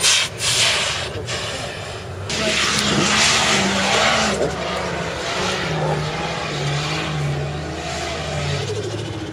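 Toyota Land Cruiser 100-series engine revving hard as the SUV slides across sand, over a hiss of spraying sand. From about two seconds in, the engine note rises and falls in steps.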